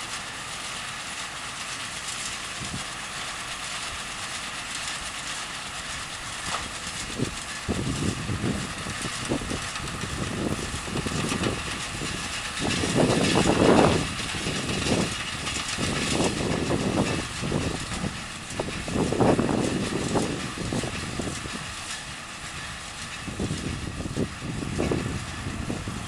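Tractor engine running steadily under load as it pulls and drives a round baler through straw, heard from a distance. Irregular low gusts of wind noise on the microphone come and go through the second part, strongest about halfway.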